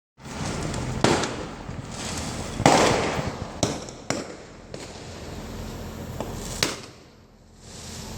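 Aerial firework shells bursting overhead: a string of sharp bangs, about five strong ones and a few weaker ones. The loudest, about two and a half seconds in, is followed by a rolling rumble.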